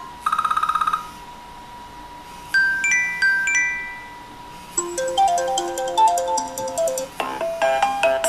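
iOS 7 ringtones previewing one after another on an iPhone, each cut short by the next. First a brief fast-pulsing tone, then a few rising chime notes, then from about five seconds in a melody of quick notes that grows into fuller chords near the end.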